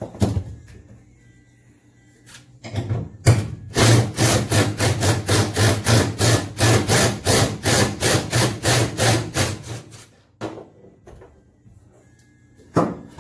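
Cordless power driver run on a seat-belt anchor bolt in a car's rear floor for about six seconds, its motor humming under an even pulsing of about four beats a second. A few separate knocks and clunks come before and after it, the loudest near the end.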